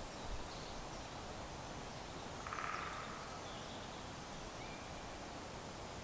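Steady faint outdoor background hiss with a few faint distant chirps. About two and a half seconds in, one short pulsed croak: a frog calling from the pond.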